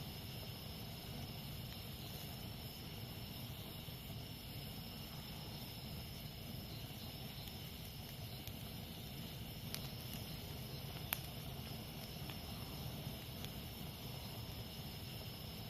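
Campfire burning with soft crackling and a few sharp pops, the loudest a little past the middle, over a steady high chorus of jungle insects.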